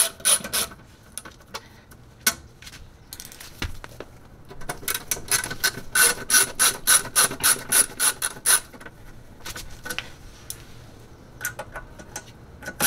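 Ratcheting screwdriver clicking in quick, even runs of about four or five clicks a second as screws are worked loose. There is a run at the start, a longer one in the middle, and another near the end, with short pauses between.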